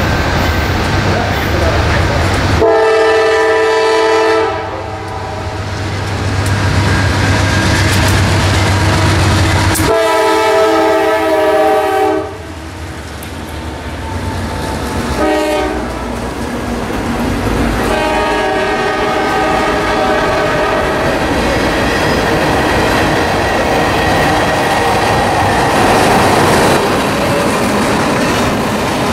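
CSX freight train's diesel locomotive horn sounding two long blasts, a short one and a long one, the grade-crossing signal, over the low running of the passing locomotives. Tank cars then roll by with steady wheel-on-rail clatter.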